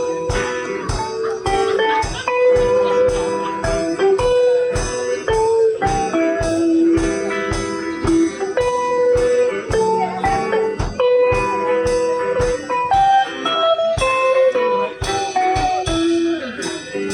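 Live rock-and-roll band playing, with an electric guitar taking the lead in held and bent notes over bass and a steady drum beat.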